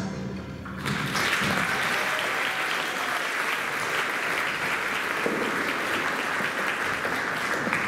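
Audience applauding, starting about a second in as the last of the music dies away, then holding steady and easing off near the end.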